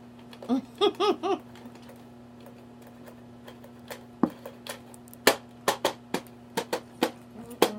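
A short laugh of three or four quick syllables about half a second in. Then sharp taps start about four seconds in and come faster, falling into a rough beat near the end, over a low steady hum.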